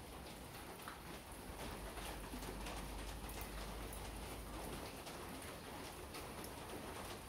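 Rain falling steadily on wet paving, with many small drop ticks.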